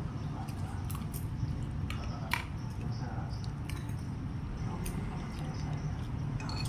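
Eating at a table: a few scattered clinks of cutlery against a bowl, the sharpest about two and a half seconds in, over a steady low hum.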